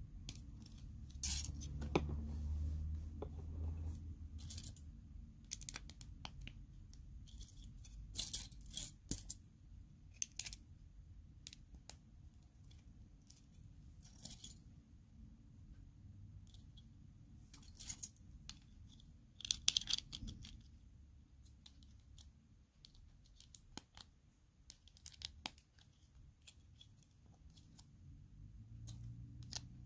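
Small plastic Lego pieces clicking and clinking as they are handled, with short bursts of rustling here and there.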